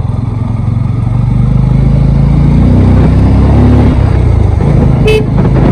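Vehicle engine running as it is driven slowly along a road, a steady low drone that swells a little after the first second. A brief sharp click about five seconds in.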